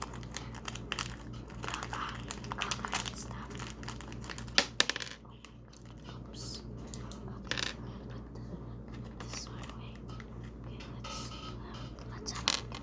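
Scissors and hands opening a small plastic-wrapped snack, a run of light clicks, snips and crinkling rustles, with a couple of sharper clicks about four and a half seconds in, over a steady low electrical hum.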